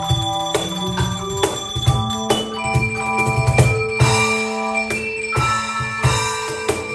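Music bells and tone chimes ringing a melody over held chords, with a drum keeping a regular beat underneath.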